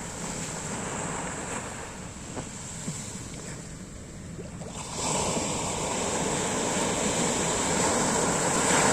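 Sea waves washing onto the shore, with a louder surge of surf about halfway through that builds and then eases off near the end.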